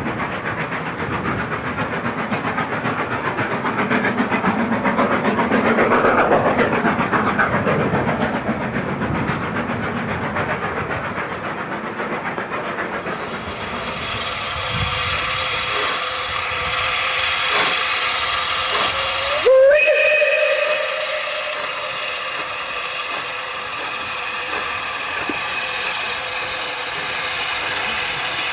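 Steam locomotive hauling a train, its exhaust and steam making a steady rush. After a cut, a steam locomotive approaches with steam hissing and sounds its whistle about two-thirds of the way through: the pitch rises sharply, then holds.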